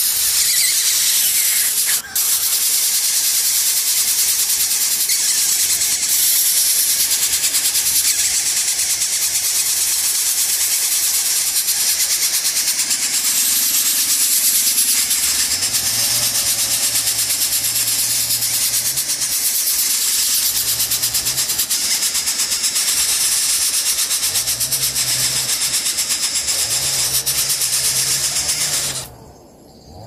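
Coucal nestlings begging at the nest: a loud, continuous rasping hiss with a fast pulse in it that breaks off suddenly about a second before the end, as the chicks stop gaping. Low humming notes come and go through the second half.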